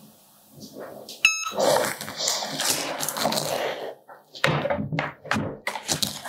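A Cricut heat press gives a click and a short electronic beep as its countdown timer runs out, signalling the end of the pressing time. The press is then lifted off and moved with a couple of seconds of loud handling noise, followed by a quick run of knocks and thuds.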